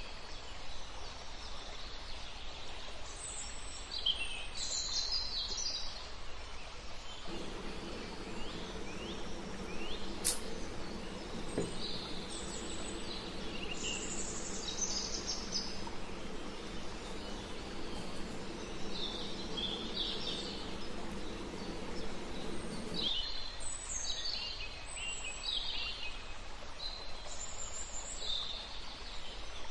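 Small birds chirping and trilling again and again over a steady background hiss. From about seven seconds in until about twenty-three seconds, a steady low hum joins them.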